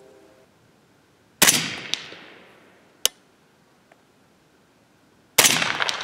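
Two suppressed 300 Blackout rifle shots about four seconds apart, each followed by a long echo dying away, with short sharp ticks after the first. The shooter thinks the second heavy-crimp handload went supersonic.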